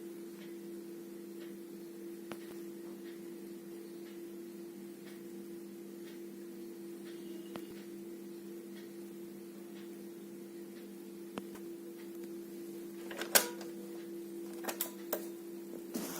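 Steady low electrical hum from a Philips radio cassette player, with faint scattered ticks. Several sharp clicks come near the end, the loudest about three seconds before the end.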